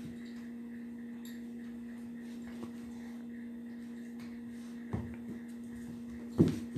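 A German Shepherd/Lab mix and a Shepsky puppy play-wrestling on a dog bed, mostly quiet over a steady low hum. Near the end come two brief scuffle sounds from the dogs, the second one the loudest.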